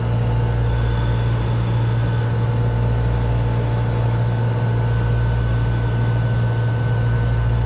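Steady low hum of running plant-room machinery, with a few steady tones above it and an even wash of noise; nothing starts or stops.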